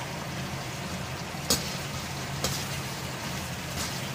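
Sliced onions, green chillies and curry leaves frying in hot oil in a steel kadai, a steady sizzle. A few sharp clicks of a metal slotted spatula against the pan as they are stirred.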